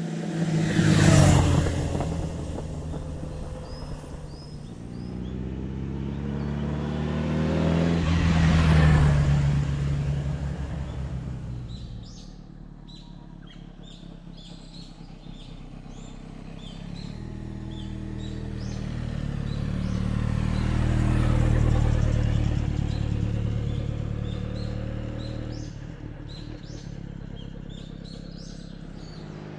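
Honda CB1300 Super Four inline-four running through a BEAMS exhaust fitted with a modified inner silencer. The engine note swells and fades three times as the bike passes by, loudest about a second in. Birds chirp in the quieter stretches between passes.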